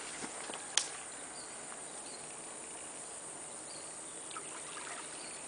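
Steady high hiss of insects, with a single sharp click about a second in and a few faint short high chirps.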